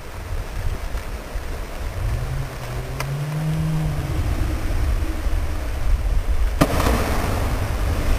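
Steady low rumble of wind on the microphone and falling water. About six and a half seconds in, a sudden rush of noise sets in: the splash of a cliff jumper landing in the pool below a waterfall.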